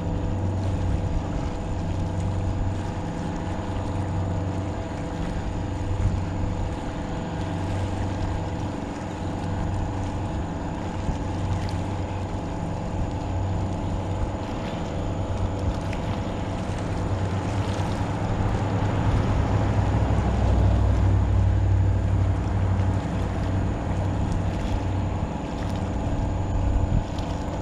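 Boat engine droning steadily at one pitch. It swells louder with a deeper rumble about two-thirds of the way through.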